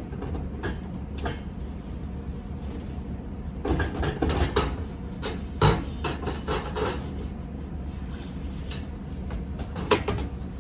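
Knocking and clattering of hard objects being moved about, as tools are shifted in a shed to get a snow shovel out, with a busy run of knocks in the middle and another sharp knock near the end.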